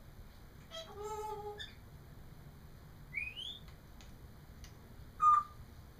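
African grey parrot whistling and calling: a short call about a second in, a quick rising whistle about three seconds in, and a short, louder whistle near the end.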